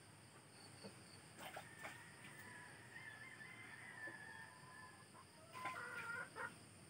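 Faint bird calls: long, wavering calls, with a louder, busier cluster of calls near the end.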